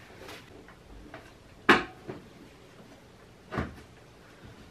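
Steel tyre lever prying a knobby tyre's bead onto a spoked pit bike rim: a sharp metallic clack about a third of the way in and a second, softer one past halfway, with a few faint knocks and scrapes between.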